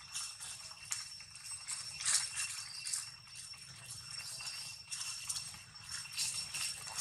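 Dry fallen leaves crackling and rustling under footsteps in irregular bursts, over a steady high insect drone.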